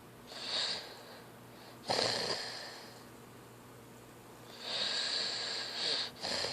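A sleeping teenager snoring: four noisy breaths. The one about two seconds in starts abruptly with a snort, and a longer one comes near the end.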